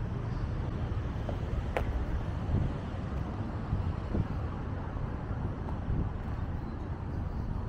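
Wind rumbling on the microphone, with faint outdoor street noise beneath it and a single light click about two seconds in.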